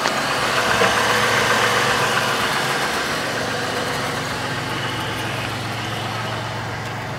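1997 Chevrolet Malibu's 3.1-litre V6 idling steadily, warming up with the coolant cap off so the cooling system can burp out its trapped air.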